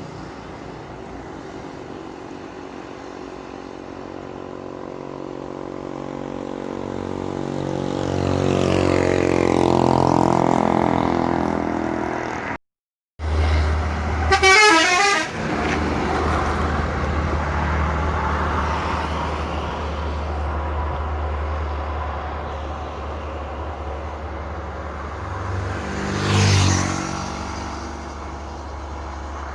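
Intercity buses climbing a steep grade, their heavy diesel engines labouring as they come closer and pass. Just after a brief cut, a telolet musical bus horn plays a quick warbling run of tones. A steady low engine drone follows, and another vehicle swells past near the end.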